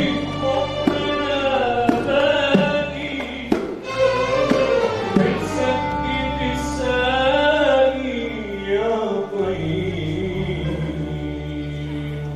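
Live Arabic song: a male singer with an ensemble of musicians, a winding melodic line over a held bass, with drum strokes in the first half.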